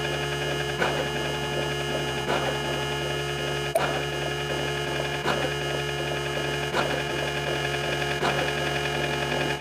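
A steady electronic buzzing drone made of many held tones, with a soft tick about every second and a half.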